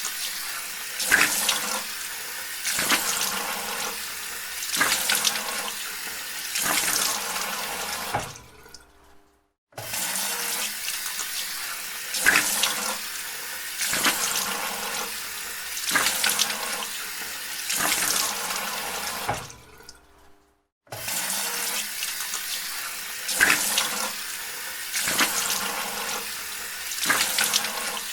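Tap water running into a bathroom sink while a face is washed: cold water is scooped and splashed onto the face about every two seconds. The water fades out and stops briefly twice, then starts again.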